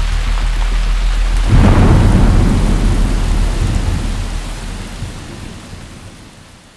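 Heavy rain falling, with a clap of thunder about a second and a half in that rolls on and slowly dies away. The storm fades out near the end.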